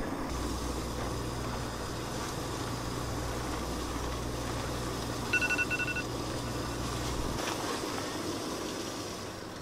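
Portable cassette gas stove burning on high under a lidded steaming pot, a steady low hum with a hiss. About five seconds in, a smartphone timer beeps briefly as it runs out. The hum stops near the end as the burner is turned down to low.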